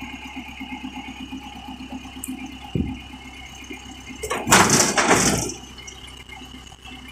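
Belarus MTZ-80 tractor's diesel engine running steadily, with a loud rushing hiss that bursts in about four seconds in and lasts about a second.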